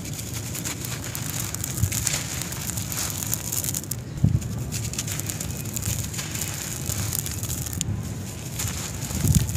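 Soft, dry sand-cement chunk breaking and crumbling in bare hands: fine, gritty crackling of crumbs and grit with scattered small clicks. A louder crumbling crunch starts near the end.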